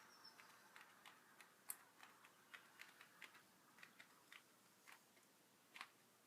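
Faint, irregular small clicks and ticks, about fifteen of them spread unevenly over several seconds, like light handling of small objects.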